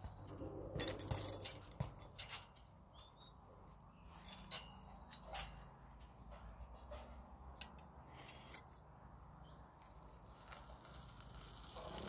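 Stainless steel potato ricer being worked by hand: light metal clicks and clinks as its handles and basket are moved, mostly in the first two seconds. From about ten seconds in there is a soft hiss as the handles are squeezed and crowberries are pressed through the perforated basket.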